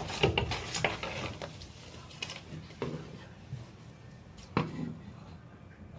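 Scissors snipping through folded fabric, cutting out a marked curve: a quick run of crisp snips at first, then a few spaced snips.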